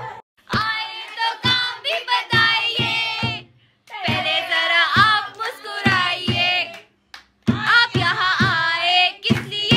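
A woman singing a wedding folk song to steady hand clapping, about two claps a second. The singing breaks off briefly twice between phrases.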